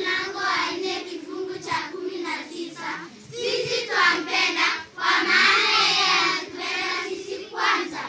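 A group of girls singing together in unison, their voices swelling and dipping between phrases.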